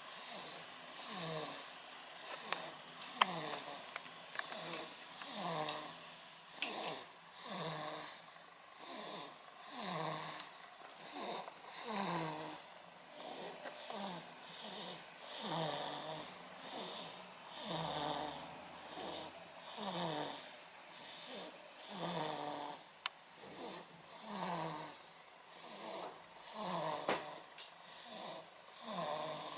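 A sleeping baby snoring, a short snore with nearly every breath, about one a second, each one sliding down in pitch.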